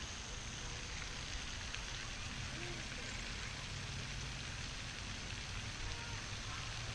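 Steady rain-like hiss of water splashing from a pond's spray fountain, with a low rumble underneath.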